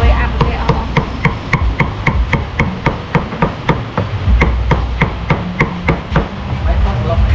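Meat cleaver chopping roasted beef on a thick wooden chopping block: a fast, even run of sharp chops, about three to four a second, that stops near the end.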